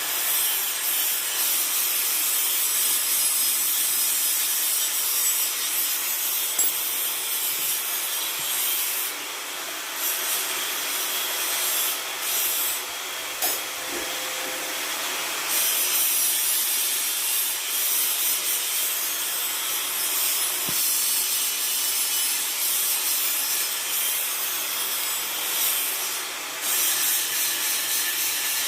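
Electric angle grinder running with a steady, rough rasping noise, the 'ngorok' (snoring) sound this grinder is known for. It dips briefly a few times along the way.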